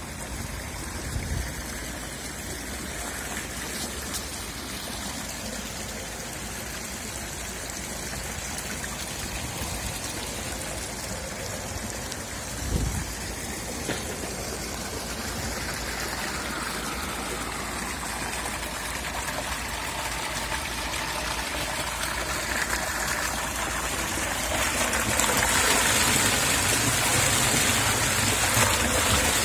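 Spring water pouring from a pipe spout into a stone trough: a steady rushing splash that grows louder over the last few seconds as a hand is held in the jet. A brief low thump about halfway through.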